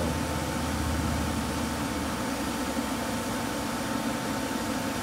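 Electric blower motor running steadily, pushing air into tarp air pillows: a steady rush of air with a thin constant whine. A low hum under it fades about two seconds in.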